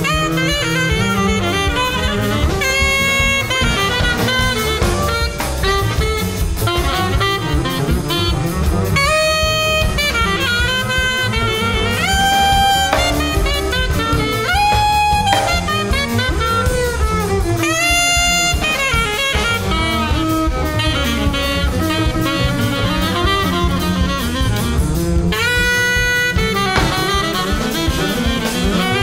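Free jazz quartet playing: alto saxophone in short phrases of held and bending notes over two double basses and a busy drum kit.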